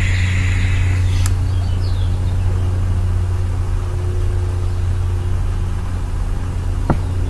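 A hissing draw on a vape mod ends about a second in with a sharp click, over a steady low idling hum like a car engine's. Another sharp click comes near the end.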